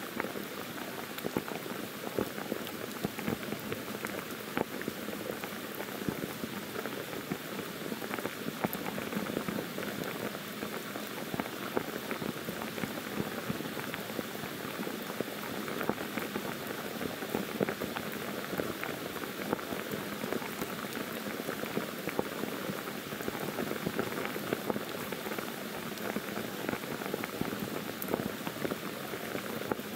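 Pouring rain falling steadily on forest foliage: an even hiss thick with the patter of individual drops.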